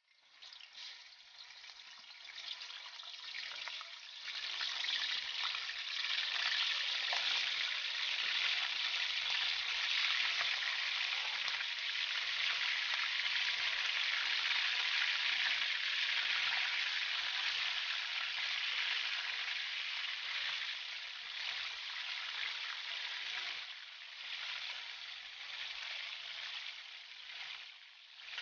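Raw chicken pieces frying in hot oil in a wide metal wok. The sizzle grows louder about four seconds in as more pieces go into the oil, then eases somewhat toward the end, while the pieces are turned with tongs.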